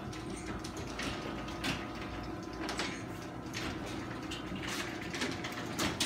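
Sectional garage door opening under its electric opener: a steady motor hum, with the rollers clicking and clunking along the tracks about once a second.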